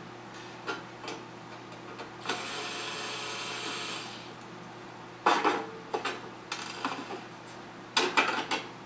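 Cordless electric screwdriver whirring for about two seconds as it backs out a rear-cover screw on a document scanner. From about five seconds in come sharp clatters and clicks of the loosened metal rear cover and screws being handled and lifted away.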